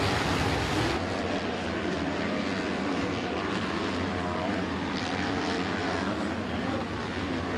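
Motocross bike engines racing on a dirt track, revving up and down through the gears under a steady hiss.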